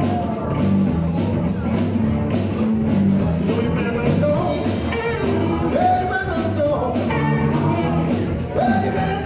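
Live blues-rock band playing: electric guitar, bass, drums and keyboard keep up a repeating bass riff with a steady beat, and from about four seconds in a lead line of sliding, bending notes rides over the top.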